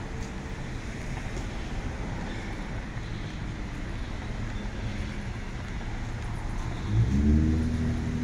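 Street traffic: a steady rumble of passing cars. About seven seconds in, a nearby car engine grows louder with a low steady pitch.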